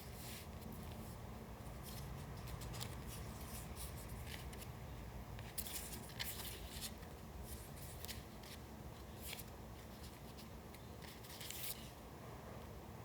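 Paper being handled for a collage: irregular short, crisp rustles and crackles, a busier cluster about halfway through and another near the end.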